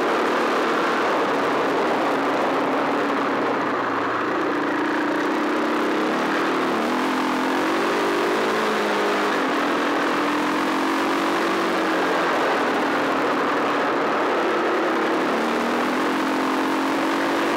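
Off-road motorcycle engine under hard riding, its note climbing and dropping again and again as the throttle is worked and gears change, over a steady rushing noise.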